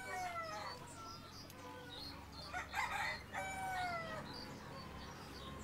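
Domestic chickens calling: two long calls that fall in pitch, one at the start and one about three seconds later. A short harsh burst between them is the loudest moment, and faint small-bird chirps sound throughout.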